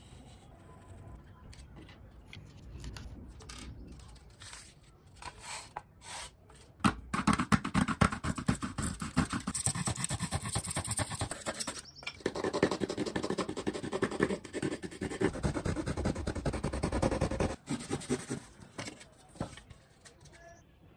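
A bare hacksaw blade sawing through a thermocol (expanded polystyrene foam) sheet in quick back-and-forth strokes, a scratchy rasping that starts about seven seconds in, breaks off briefly midway and stops abruptly near the end. Before it, a marker scratches faintly along the foam.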